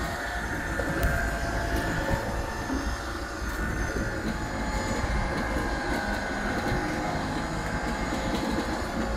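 A motor running steadily: an even low rumble with a cluster of steady tones, without a break.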